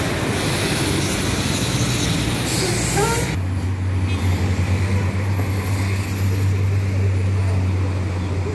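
Town street traffic: a loud rushing hiss for about the first three seconds, then the steady low hum of a large vehicle's engine idling.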